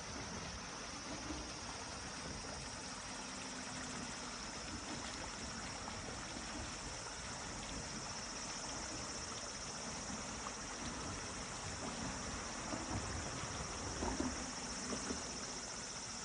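Steady high-pitched insect drone over the soft rush of a mountain stream, with a few small knocks near the end.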